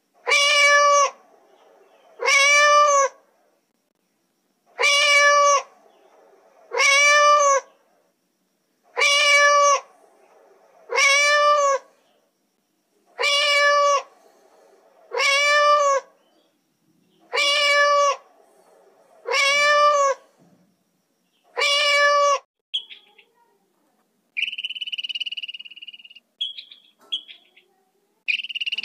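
Domestic cat meowing: eleven loud, drawn-out meows of about a second each, rising then falling in pitch, coming in pairs. About three-quarters of the way through they stop, and a grey squirrel's short high chirps and a buzzy call follow.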